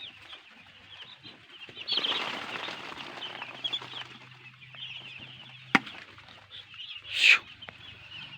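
A shed full of day-old chicks peeping constantly in short high chirps. A rustling burst comes about two seconds in, and a low hum stops at a sharp click near six seconds. A short loud rustle, the loudest sound, comes near the end.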